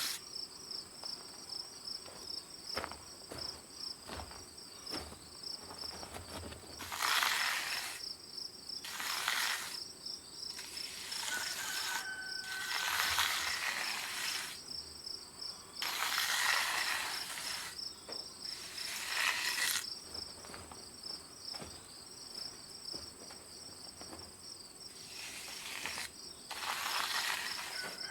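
Insects trilling steadily in a fast, even pulse. Over it come about seven rough, noisy rasps of a second or so each, spaced a few seconds apart.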